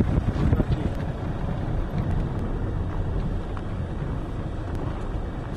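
Car driving along a rough unpaved road, heard from inside the cabin: a steady low rumble of engine and tyres.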